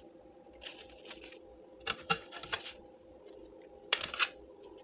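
Metal tongs clicking and scraping against an aluminium baking pan while bread rolls are picked off it: a soft rustle, then two clusters of sharp clicks about two seconds apart.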